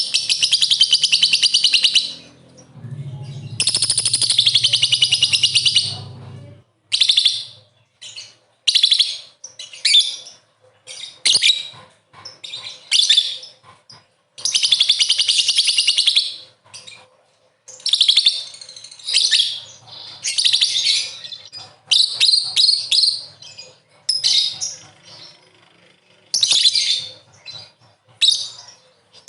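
Lovebird chattering in long, fast, high trills of about two seconds each, the 'ngekek' chatter, broken up by many shorter bursts of shrill chirps.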